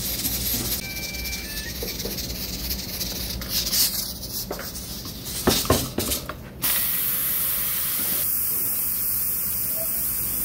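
Kitchen sounds: a few sharp knocks and clatters, then about two-thirds of the way in a steady loud hiss sets in suddenly and holds.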